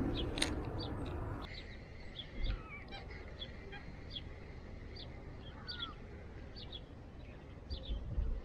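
Wild birds chirping and calling: many short high chirps and a few gliding whistled notes, over a low outdoor rumble, with two brief low bumps, one about two and a half seconds in and one near the end.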